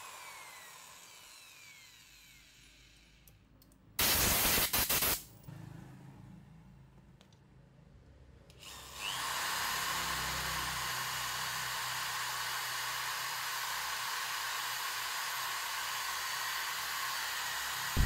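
Electric drill spinning fine sandpaper inside a motorcycle carburetor's throttle bore, scouring off the gummy deposit that makes the throttle slide stick. The drill winds down at the start and gives a brief loud burst about four seconds in. About nine seconds in it spins up and then runs steadily.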